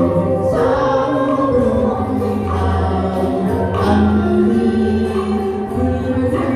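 Music from a Vietnamese song: sustained melody notes over a steady bass line.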